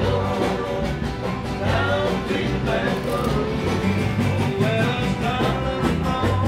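Upbeat background music with a steady beat and bass line.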